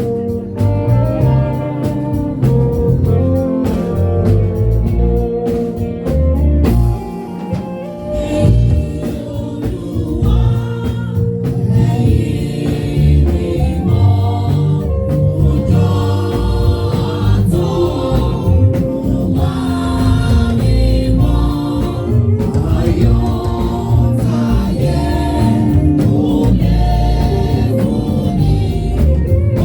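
Church choir singing a hymn in gospel style over instrumental accompaniment with a steady bass beat.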